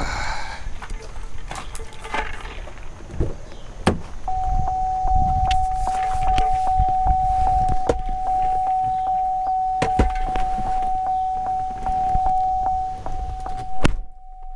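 Chevy Tahoe's door-open warning chime: one steady high tone that starts with a click about four seconds in, pulsing with soft ticks about twice a second. Near the end a car door shuts with a heavy thump.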